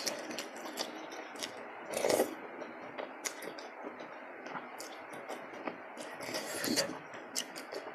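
Eating sounds: wet mouth clicks and chewing while slurping rice vermicelli noodles in spicy soup, with louder slurps about two seconds in and again near seven seconds.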